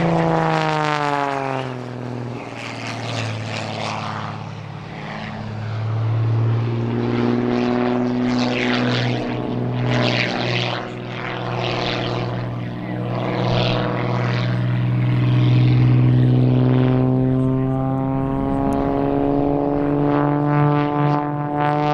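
MXS aerobatic monoplane's piston engine and propeller in aerobatic flight. The engine note drops in pitch at the start as the plane passes, holds steady with surging propeller rush through the middle, and rises again near the end.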